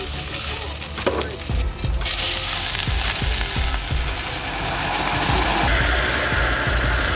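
Hot pot of near-burnt onions sizzling, then boiling water poured onto them from about two seconds in, hissing loudly as it flashes to steam.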